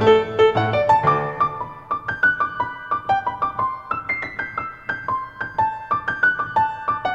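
Background piano music: a quick run of single notes, with fuller low notes in the first second or so, then a lighter, higher melody.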